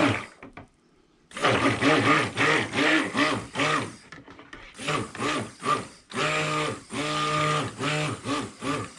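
Electric stick blender running in short pulses in a bucket of melted soap oils with a whole raw egg. The motor's pitch swells and drops with each press, with a pause about four seconds in and a longer steady run in the second half. The blender is pulsed gently so the egg whites blend in without whipping the mix fluffy.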